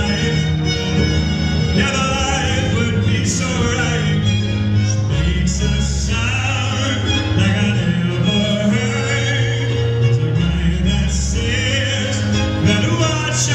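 Live pop ballad played by a band with a string section, with a man singing over sustained strings.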